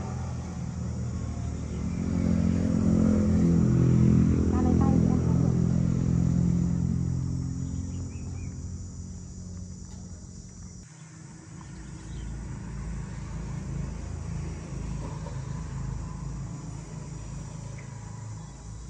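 Low engine rumble that swells over the first few seconds and then fades, as of a passing motor vehicle. It changes suddenly about eleven seconds in, after which a lower rumble carries on.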